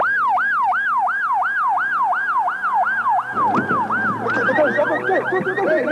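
An electronic siren sweeping up and down about three times a second, starting abruptly. A little past halfway a second, faster warbling siren tone joins it.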